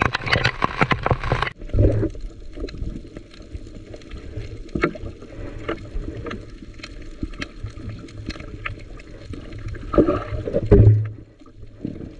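Rain and sea water splashing around a small fishing boat. Dense pattering for the first second and a half, then a sudden drop to lighter splashing and scattered drips, with a louder surge of sloshing water about ten seconds in.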